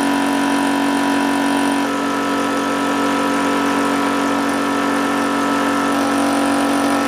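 Water-cooled New Warrior high-pressure air compressor running steadily under load, filling an air tank toward 285 bar: a constant mechanical hum with a strong low tone, whose pitch pattern shifts slightly about two seconds in.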